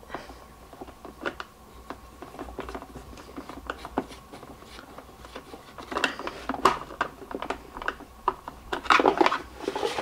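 Plastic parts of a drip coffee maker's polypropylene housing being worked apart with a screwdriver: scattered small clicks and scrapes, with denser clattering about six seconds in and again near the end as the two halves come apart.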